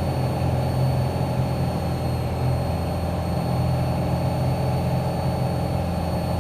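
Steady drone of a Commander light airplane's piston engine and propeller inside the cockpit, on the landing approach.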